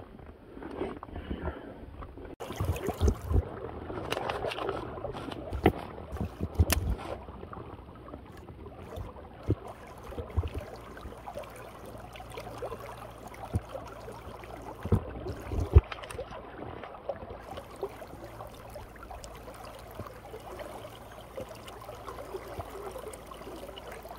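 Shallow creek water running, with scattered splashes and knocks from wading; they come thickest in the first seven seconds and again about fifteen seconds in.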